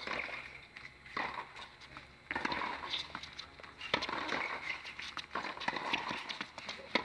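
Tennis rally on a hard court: sharp pops of the ball struck by rackets and bouncing, several times about a second or so apart.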